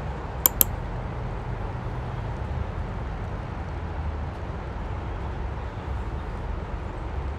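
Two quick computer-mouse clicks about half a second in, over steady outdoor background noise with a low rumble.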